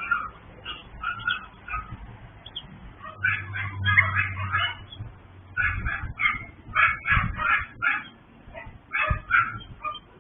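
Several small dogs barking and yapping over and over, short sharp barks in overlapping clusters: the nuisance barking of a multi-dog breeder's kennel.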